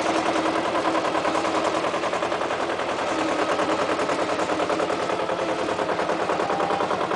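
AUSA 200 RMR minidumper's engine running as the machine drives, with a rapid, even chugging beat.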